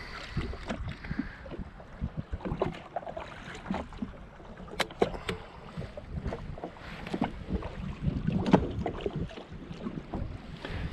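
Small waves slapping and knocking against the hull of a drifting Yamaha FXHO jet ski, with wind buffeting the microphone. A few sharp ticks come about five seconds in.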